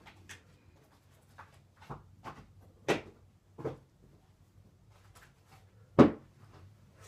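Scattered knocks and clunks of someone rummaging through things while searching, with a sharp knock about three seconds in and the loudest about six seconds in, over a faint low hum.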